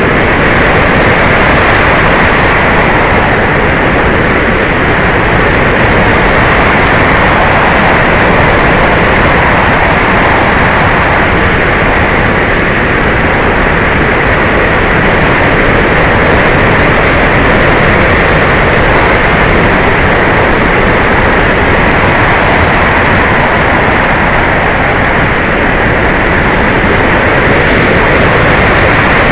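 E-Flite Apprentice electric RC trainer plane in flight: a steady, loud rush of airflow and propeller noise with a faint high whine, with no let-up in power or speed.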